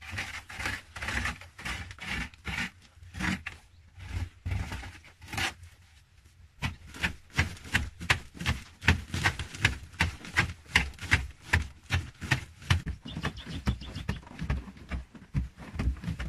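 A hand digging tool chopping and scraping into a packed-earth wall in a run of short strokes. The strokes are spaced out at first with a brief pause, then come faster, about three a second.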